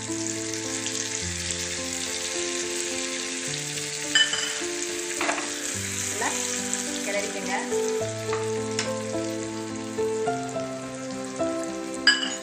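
Ghee sizzling in a small steel tempering pan as cumin seeds and black peppercorns fry in it, with two sharp metallic clinks, about four seconds in and near the end, over background music.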